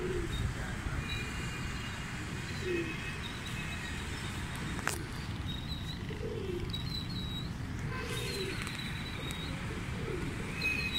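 Steady low rumble of wind and distant city noise, with scattered short bird chirps and calls throughout.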